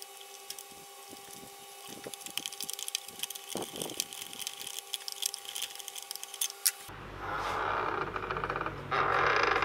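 Light metallic clicks and taps of a screwdriver and a steel bracket being fitted to a cheap sliding mitre saw's head. Near the end a low hum comes in, with two louder rasping bursts made of rapid ticks.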